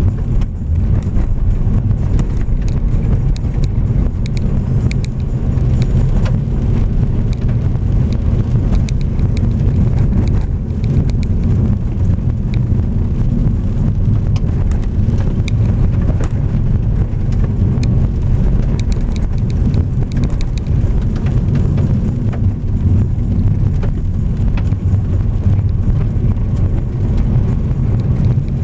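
Car driving on a gravel road: a steady low rumble of engine and tyres, with frequent small ticks and crackle of gravel under the tyres.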